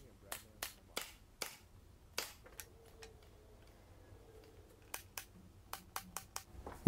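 Milwaukee cordless brad nailer firing brads into plywood spacers: a string of sharp clicks, one run in the first three seconds, then a pause, then a quicker run near the end.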